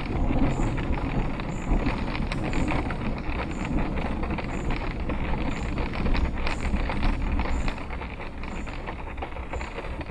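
Rain drops pattering on a car's windshield and body, with storm wind gusts buffeting the car, heard from inside the cabin. It eases a little near the end.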